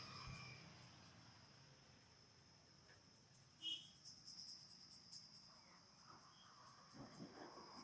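Near silence: a faint steady high-pitched tone with fine crackling, and one brief high chirp a little before the middle.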